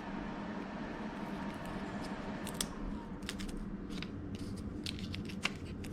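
A few short, sharp clicks and light handling noises from a piece of UHMW plastic being worked with the hands, over a steady low hum.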